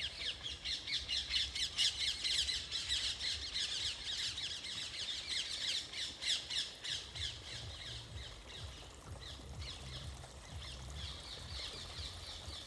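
A flock of birds calling in a fast, dense stream of short overlapping calls, busiest in the first half and thinning out after about seven seconds.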